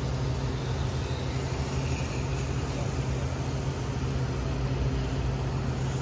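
Steady machine drone with a constant low hum under an even rushing noise, unchanging throughout.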